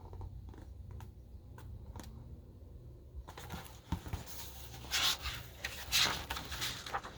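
Paper rustling as the pages of a picture book are handled and turned, with two brief rustles in the second half, over a low steady hum.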